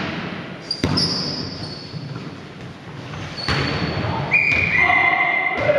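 Volleyball rally: sharp hits of the ball echoing around the hall, about a second in, again around three and a half seconds, and near the end. Between the hits come high squeaks of shoes on the court floor.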